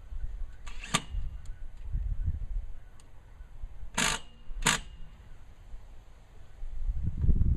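Knocks and clatters from handling antenna mast hardware during installation: a light knock about a second in, then two sharp clatters in quick succession about four seconds in. A low rumble of handling or wind noise on the microphone builds near the end.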